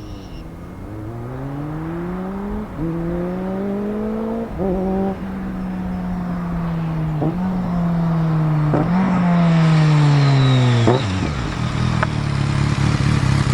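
2006 BMW K1200GT's inline four-cylinder engine through a Delkevic aftermarket exhaust, accelerating hard from a launch: the pitch climbs and drops back with each upshift, four times, then falls away as the bike slows, ending in a louder rough rumble.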